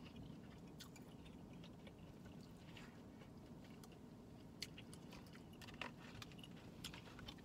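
Faint, close chewing of a rice and chicken bowl, with a few small clicks of forks against takeout bowls, over a low steady background hum.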